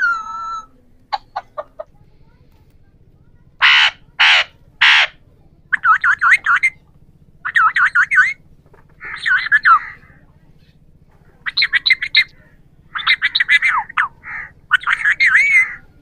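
Alexandrine parakeets calling: a few short clicks, then three loud harsh screeches about half a second apart. After that come repeated bursts of fast, warbling chatter with wavering pitch.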